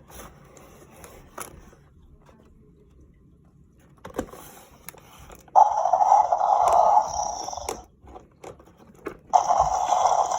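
Toy packaging being handled and opened, with a few light clicks at first. Then come two long stretches of scraping and crackling, the second starting near the end.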